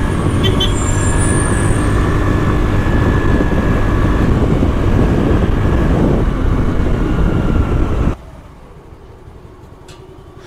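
Steady motor-vehicle and street noise with a low rumble, cutting off abruptly about eight seconds in to a much quieter background.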